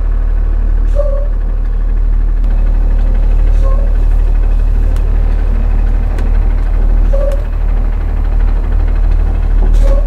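Cummins ISB inline-six diesel in a school bus running steadily as the bus drives slowly, heard from the driver's seat as a loud low rumble; it is running on a donor ECM, which cured its crank-no-start. A few brief squeaks come through about four times.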